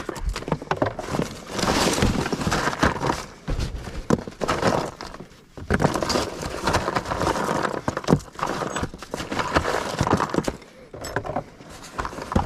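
Hands rummaging through loose scrap and debris in a dumpster: irregular clattering, knocking and rustling of metal pieces and junk as small copper scraps are picked out, with brief lulls.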